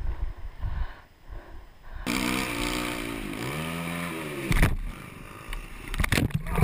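Low rumble and scattered thumps, then about two seconds in a motocross bike engine running hard, heard from a helmet camera, its revs dropping and climbing again. It is cut off by a hard thud, and near the end comes clattering and scraping as the bike goes down in a crash.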